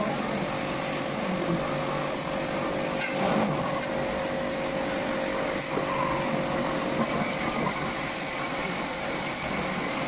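A pump motor running steadily: a constant hum tone with an even hiss over it.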